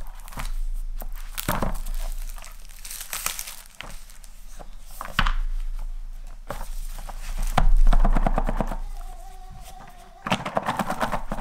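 Clear plastic shrink wrap being torn and peeled off a small cardboard box, with irregular crinkling and crackling, then rubbing and knocks as the box is handled.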